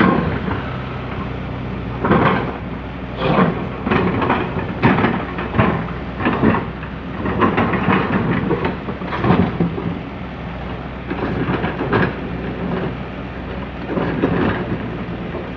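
Komatsu PC200CE excavator's diesel engine running steadily, with irregular loud rumbling bursts every second or two as the bucket digs soil.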